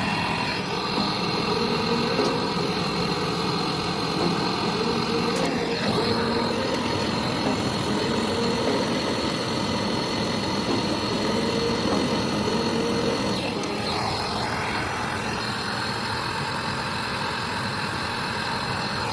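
A machine motor running steadily with a constant hum and several fixed whining tones.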